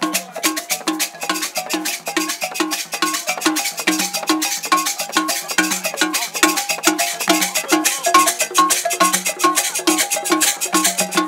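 Several small skin-headed hand drums played by hand in a fast, steady rhythm, with a higher-pitched note repeating on the beat.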